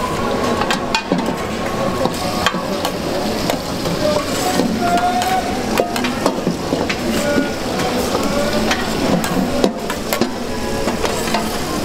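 Egg sizzling on a flat steel griddle while a metal spatula and scraper scrape and clack against the plate, with many short sharp clicks throughout.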